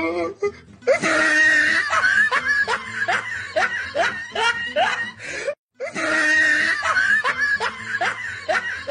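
A person laughing in rapid, rising bursts. The laughter cuts out for a moment about halfway through, then the same laughter starts again.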